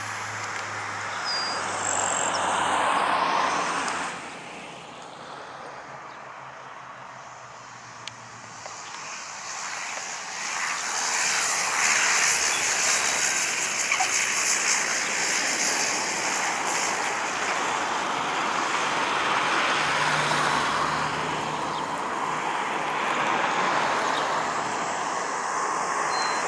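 Aircraft engine noise: a steady rushing with a high hiss. It eases off about four seconds in, then builds again from about eight seconds in and holds steady.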